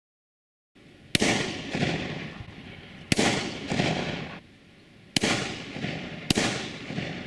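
Four shotgun shots heard from about 150 yards, the first about a second in and the rest roughly two, two and one second apart. Each is a sharp crack followed by a long echo that dies away over a second or more.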